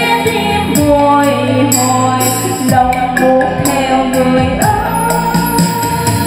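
Karaoke: a woman singing long held notes into a microphone over a backing track with a beat. It plays loud through an NT1508 trolley party speaker with two 40 cm bass drivers.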